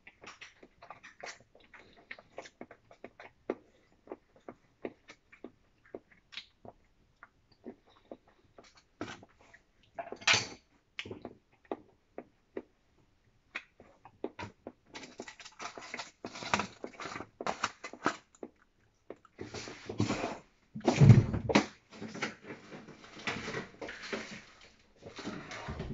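Chopsticks clicking and tapping against a small plastic food tub, with eating sounds, then rustling and handling noise and a heavier thump near the end.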